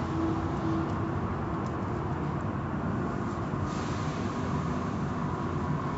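Automatic car wash heard from inside the car: a steady rumble of the wash machinery with water spray hitting the car. The hiss of the spray grows louder a little past halfway.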